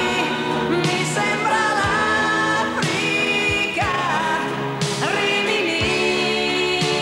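1980s Italian pop song: a woman singing long notes that slide between pitches, over a full band backing with a steady beat.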